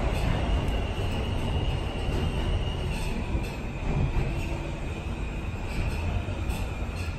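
R160 subway car rolling into a station platform and slowing, with a steady low rumble, a thin high squeal held throughout and a few faint clicks.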